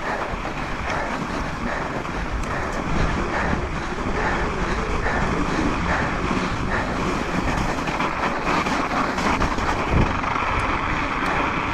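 Commencal Meta V5 mountain bike running fast down a snowfield: tyres hissing and scraping through the snow, the bike rattling with frequent short knocks, and wind noise on the camera microphone.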